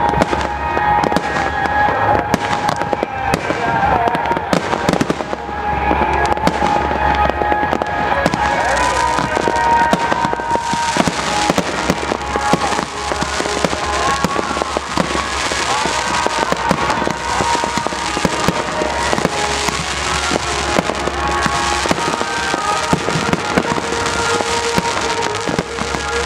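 Display fireworks fired from a river barge, a continuous run of bangs and crackling as shells burst overhead. The crackling grows denser from about ten seconds in.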